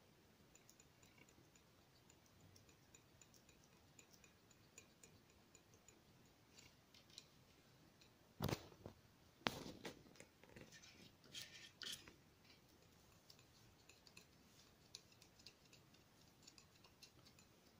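Metal palette knife working oil paint on a sheet of paper: faint ticks and scrapes throughout, with a few louder scrapes and knocks around the middle.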